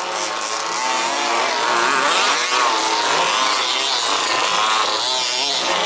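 Several 1/5-scale two-stroke petrol RC buggy engines racing, revving up and easing off, their overlapping high-pitched notes rising and falling.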